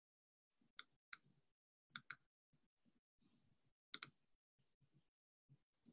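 Faint clicking of a computer mouse: six sharp clicks in three pairs, under a second in, at about two seconds and at about four seconds, with soft low rustling between.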